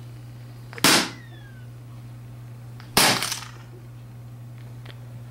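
Two sharp clattering knocks about two seconds apart, each with a short rattle, from hard laptop parts being handled and put down during disassembly. The first has a brief falling ring. A steady low hum runs underneath.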